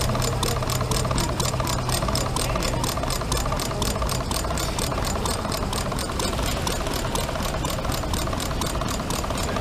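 Home-built model engine with twin flywheels running steadily, its clatter beating evenly at about five strokes a second.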